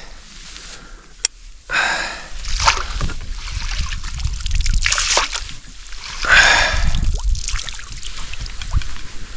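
A hooked fish thrashing in a landing net as it is scooped and lifted out of the lake, with several bursts of splashing and water streaming off the net. A sharp click sounds about a second in.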